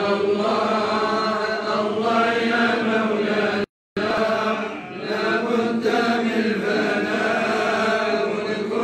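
Men's voices chanting madih nabawi (devotional praise of the Prophet) together in long, drawn-out melodic lines. The sound cuts out completely for a split second just before four seconds in.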